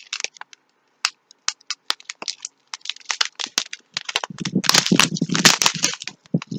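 Clear plastic bags of diamond painting drills being handled: scattered crinkles and clicks, turning into denser, louder crinkling about four seconds in.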